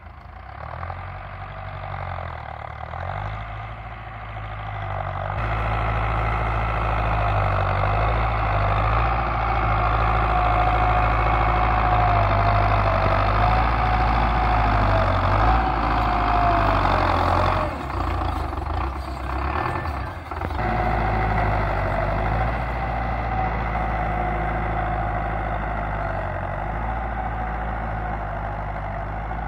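Farm tractor diesel engines running under load while pulling cultivators through dry soil, with a wavering whine over the engine note. The sound grows louder over the first few seconds and then holds steady.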